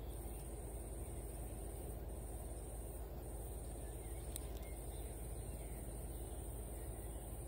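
Outdoor ambience: a steady low rumble with a steady high hiss over it, a single sharp click a little past four seconds in, and faint distant calls just after it. The wrestling stag beetles themselves make no sound that stands out.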